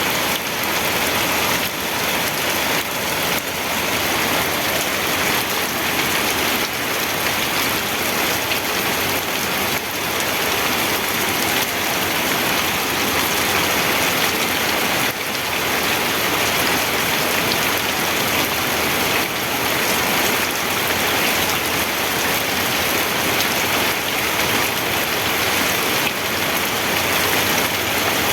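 Steady rain falling on a surface, an even hiss with many small drop ticks.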